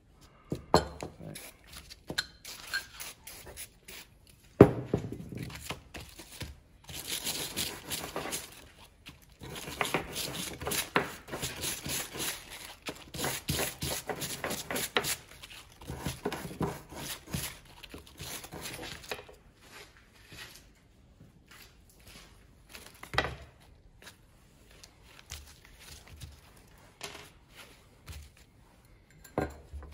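Brake cleaner sprayed onto a Land Rover Series 3 PCV valve body, then a small wire brush scrubbing the metal in quick strokes for about ten seconds. Near the end come quieter rubbing and scraping, with paper towel crinkling.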